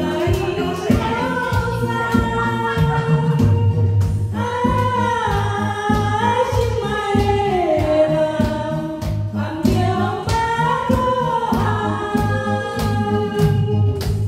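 Karaoke singing: a woman sings a slow Taiwanese ballad into a handheld microphone over a backing track, holding long gliding notes over a steady beat and bass line.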